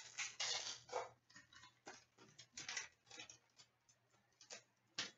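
Hockey trading-card pack being torn open and its cards slid out and handled: a string of short, irregular paper rustles and light clicks.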